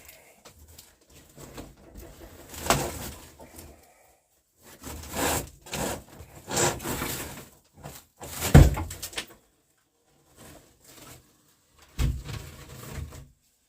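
An old sheet-metal woodstove pipe being worked loose and taken down: irregular scraping and rattling of metal with knocks, the sharpest hit about eight and a half seconds in. The old pipe is pretty well gone.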